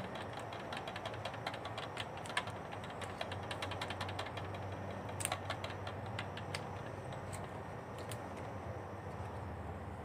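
A strip of rubber inner tube being stretched and wound tightly around a PVC pipe, giving a string of irregular small clicks and creaks over a steady low hum.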